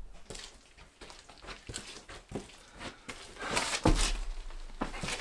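Rustling and scattered knocks of a person moving and handling things close to the microphone, with one heavy thud about four seconds in.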